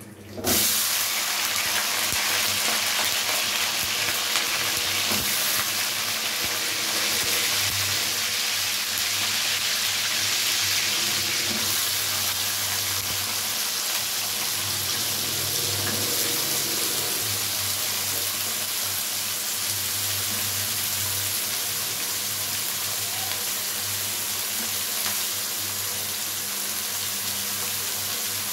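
Potatoes and chopped green beans frying in hot oil and cumin in a karahi. The sizzle starts suddenly about half a second in as the potatoes hit the oil, then carries on as a steady hiss.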